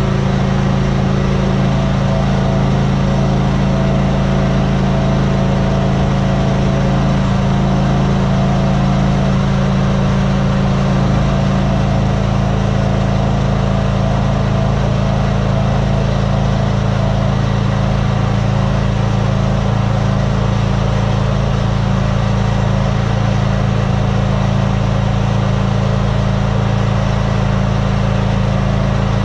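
Bulldozer diesel engine running steadily at a constant speed, a low even drone with no revving.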